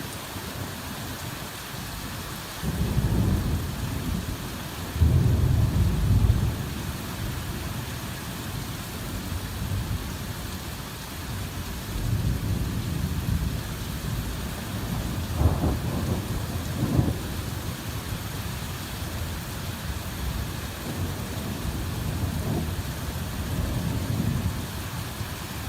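Steady heavy rain pouring, with several low rolls of thunder rumbling through it. The loudest comes about five seconds in.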